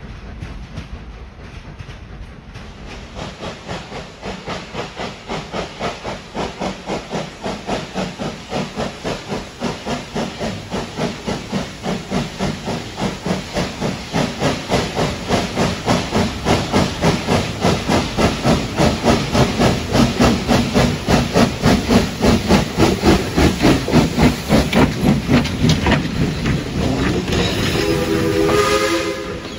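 Train rumbling away at first, then Wilmington & Western steam locomotive 58 approaching with its train, its exhaust chuffing at about two to three beats a second and growing steadily louder. Near the end comes a blast on its Lunkenheimer three-chime whistle, a chord of several tones.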